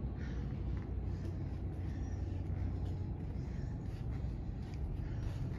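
Steady low hum of room tone, with no distinct events.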